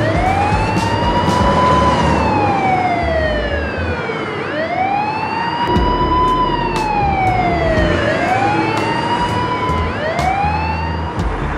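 Police-car siren wailing: a tone rising quickly then falling slowly, repeated about four times, the last two sweeps coming closer together near the end.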